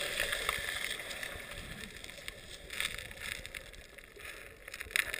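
Muffled underwater sound picked up by an action camera held below the surface: water rushing and sloshing against the housing, with scattered crackles and surges as the waves pass over.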